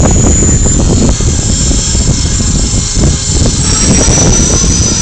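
Align T-Rex 450 Pro electric RC helicopter lifting off and flying: a high, steady whine from the motor and drivetrain over the rotor blades' whir, its pitch shifting about three and a half seconds in. Heavy wind buffets the microphone underneath.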